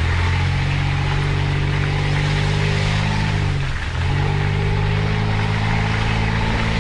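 Off-road 4x4's engine running steadily under load, heard from inside the cab. Just under four seconds in its note drops briefly, then picks up again.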